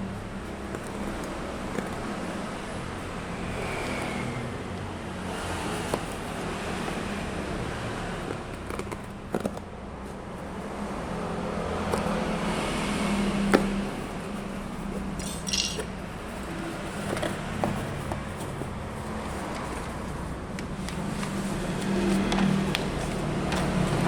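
Scattered small clicks and taps over a steady background of noise and low hum, with one sharper click about 13 seconds in and a short hiss a couple of seconds later.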